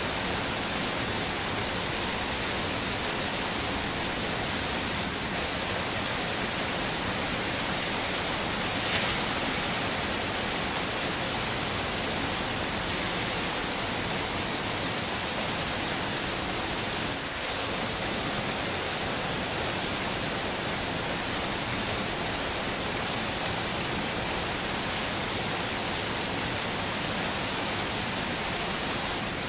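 Heavy rain falling steadily, an even hiss with no thunder. The level dips for an instant three times, about twelve seconds apart.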